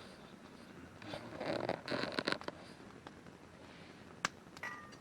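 Handling noise: a rustling, scraping burst about a second in, then a few sharp clicks.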